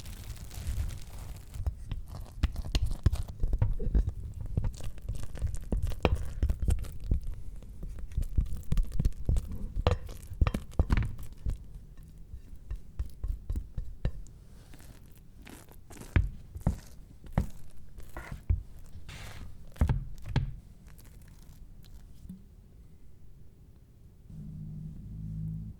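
Kitchen handling noises: a dense run of soft knocks, thunks and scrapes that thins out about halfway into scattered single knocks. A low hum comes in near the end.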